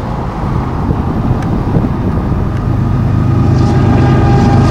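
Union Pacific GE ES44AC diesel locomotive approaching and passing, its low engine rumble growing steadily louder. About three seconds in, a few steady higher tones and light ticks join the rumble.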